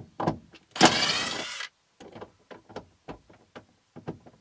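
Cordless impact driver running for just under a second as it backs a grab-handle screw out of a car's roof, followed by a string of light clicks.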